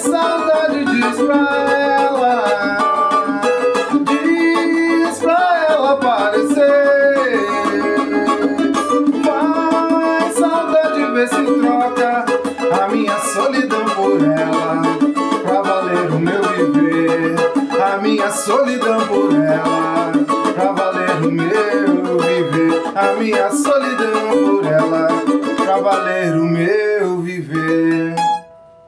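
Acoustic guitar being played with a man's voice singing the melody along with it. The music stops abruptly about a second before the end.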